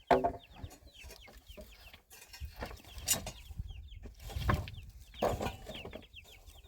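Chickens clucking, with many short high peeps repeated throughout and a few sharp knocks.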